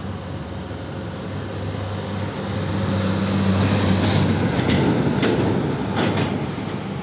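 A Mercedes-Benz tanker semi-truck passing close by. Its diesel engine and tyres build to a peak about halfway through, then fade as it pulls away, with a few short clanks in the second half.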